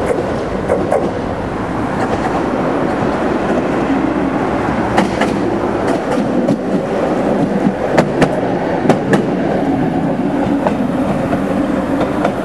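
RVR 6M2 tram running along street track and passing at close range, with a steady rolling rumble and its wheels clicking sharply over the rail joints several times, about five seconds in and again around eight to nine seconds in.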